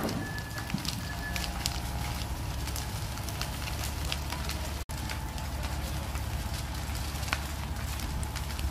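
A garage fire burning hard, crackling and popping over a steady low rumble. A sharp loud pop comes right at the start, and the sound drops out for an instant near the middle.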